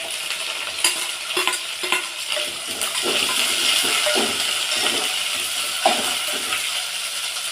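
Chopped onion and ginger paste sizzling in a pan of tempering, stirred with a spoon that knocks against the pan several times. The sizzle grows a little louder about three seconds in.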